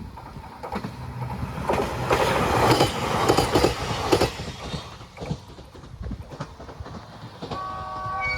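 JR East E721 series electric train passing close by, its wheels clacking over the rail joints, loudest two to four seconds in and then fading away. Near the end a steady horn of several notes at once starts sounding.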